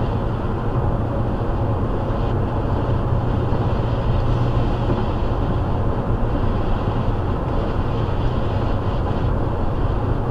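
Steady road and tyre noise with a low rumble, heard inside a car cruising on a highway at about 73 mph.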